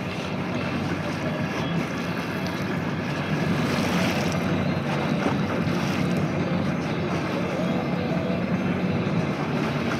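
Steady wind and sea noise aboard a small fishing boat at sea, with a low hum underneath.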